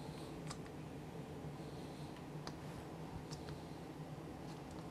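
A handful of faint, scattered clicks as a plastic marinade injector is pushed into a pork roast and worked, over a steady low hum.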